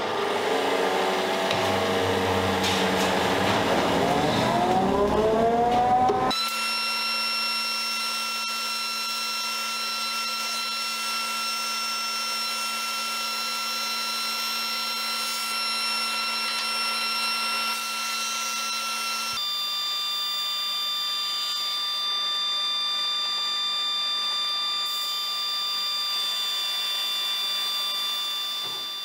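JET 18-36 drum sander with its dust extraction running. The motor spins up for about six seconds with a rising whine, then runs steadily with a high whine, and the pitch shifts about two-thirds of the way through.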